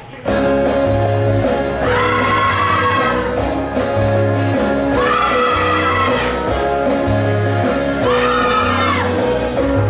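Live show band playing an up-tempo number with singing: three long held notes, each about a second long and about three seconds apart, over a pulsing bass line.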